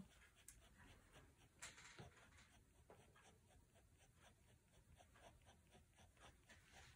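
Staedtler Pigment Liner 0.1 fineliner scratching across paper in a quick run of short strokes, faint, as fur is hatched in.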